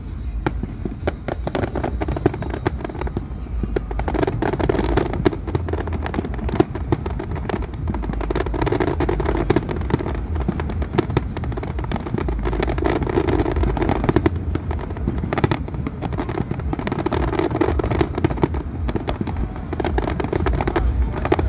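Aerial fireworks display going off: a steady stream of sharp bangs and crackles over a continuous low rumble.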